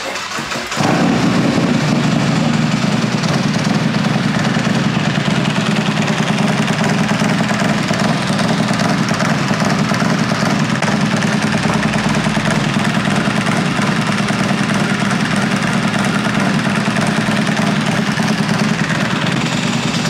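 Harley-Davidson 143 cubic inch MHP Dominator V-twin, running an open BDL 2-inch belt primary, is cranked and catches under a second in. It then idles steadily.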